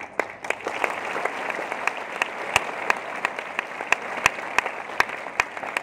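Audience applauding, with sharp claps standing out on a steady beat of about three a second.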